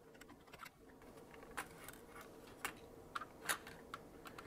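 Faint, scattered clicks and taps of a small screwdriver and small screws as screws are taken out of the metal back plate of a 35mm film camera, about half a dozen over a few seconds, over a faint steady hum.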